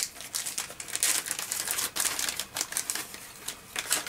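Thin plastic bag crinkling and rustling in a dense, uneven run of crackles while cotton swabs are pulled out of it.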